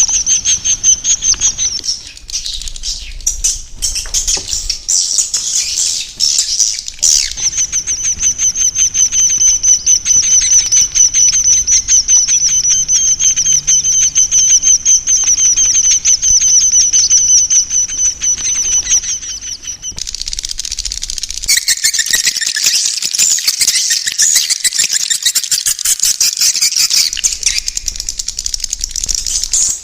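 Swiftlets' roosting calls: an unbroken run of very rapid, high chirps. About two-thirds of the way in it turns into a fuller, busier chorus of chirps.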